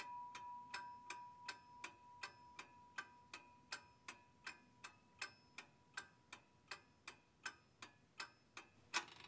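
Faint clock-ticking sound effect, sharp even ticks at nearly three a second. A high ringing tone fades away over the first few seconds.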